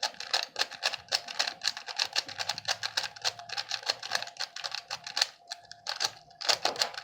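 Moyu Super RS3M maglev speed cube being turned rapidly in the hands: a fast, dense run of light plastic clicks from its layers, with a brief lull about five and a half seconds in.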